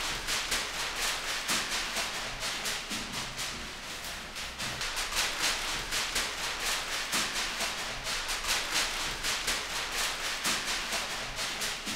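Soundtrack music made of a fast, hissing shaker-like rhythm, with little else beneath it.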